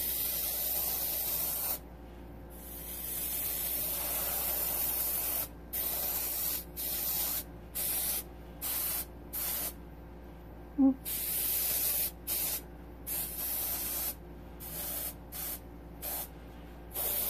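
Airbrush run off an air compressor at 45 psi, hissing in repeated on-off blasts as the trigger is pressed and released: two longer blasts in the first few seconds, then many short puffs. One brief low hum a little after the middle.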